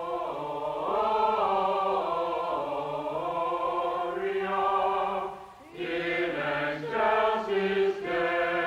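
A small group of voices singing a slow chant in unison, holding long notes, with a short break about five and a half seconds in.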